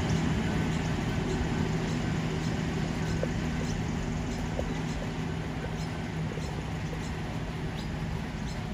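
NSW TrainLink Hunter diesel railcar pulling away, its engine and running gear giving a steady low hum that slowly fades as the train recedes. Faint short high chirps come and go over it.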